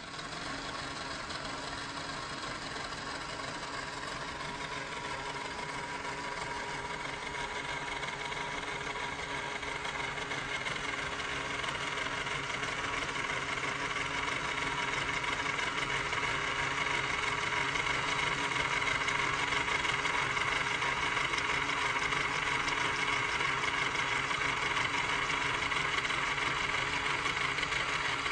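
3D-printed model steam traction engine running on an electric motor, its plastic crank, rods, valve gear and gears making a fast, even knocking pitter-patter that sounds like a real engine. It belt-drives a toy Wilesco Ferris wheel. The sound grows louder over the first quarter, then holds steady.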